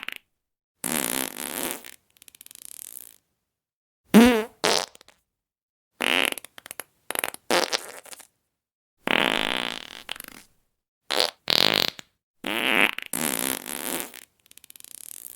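A series of fart sound effects: about a dozen separate farts of differing length and pitch, each followed by dead silence. One, about four seconds in, has a wobbling pitch that rises.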